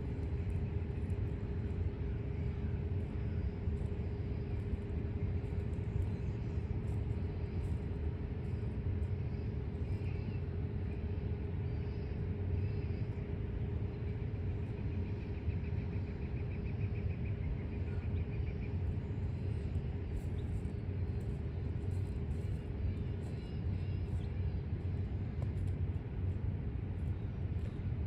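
Slow freight train rolling past at a grade crossing: a steady low rumble with a constant hum underneath.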